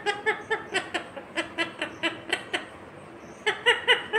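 Pet parakeet giving a rapid series of short pitched notes, about five a second, then a brief pause and a few more near the end.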